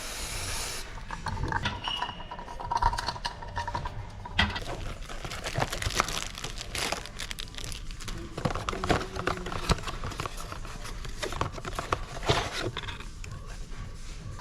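Irregular clicking and metallic clatter of hand tools being worked during an oil and filter change.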